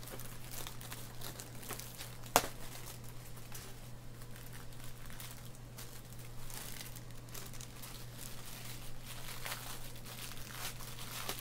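Intermittent light crinkling and rustling of plastic and paper packing material being handled, with one sharp click about two seconds in, over a steady low hum.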